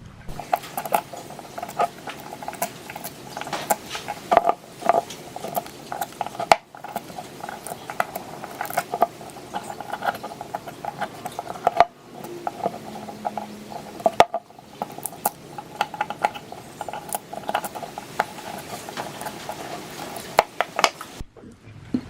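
Workshop sounds of small metal parts being handled and worked: frequent sharp clinks and scrapes over a steady mid-pitched hum, broken by abrupt cuts about every few seconds.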